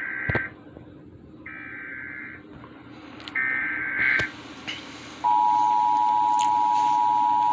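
Emergency Alert System SAME header: warbling data bursts, the end of one and then two more about a second apart. About five seconds in, the loud, steady two-tone EAS attention signal (853 and 960 Hz together) begins, announcing an emergency alert.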